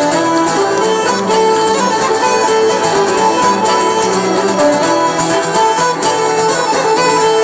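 Irish traditional band playing an instrumental passage live: a bowed fiddle carries the melody over plucked string accompaniment, steady and loud throughout.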